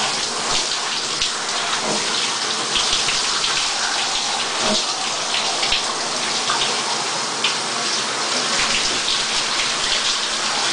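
Shower spray running steadily, water spattering without a break.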